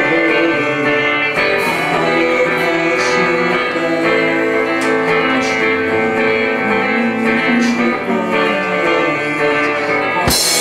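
A live band playing a song, with a sharp hit just before the end.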